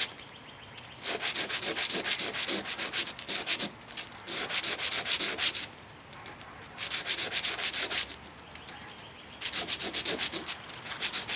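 A cut piece of brass tube rubbed back and forth on sandpaper to smooth and deburr its outer edges. The quick rasping strokes come in several spells of a second or two, with short pauses between.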